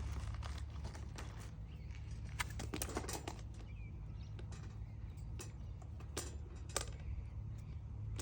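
A plastic cable tie is threaded through a sign's eyelet and pulled tight on a wire newsstand, making scattered small clicks and rattles.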